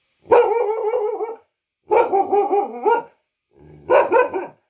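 Black-and-tan local-breed dog giving three long, howling barks, each about a second, wavering up and down in pitch.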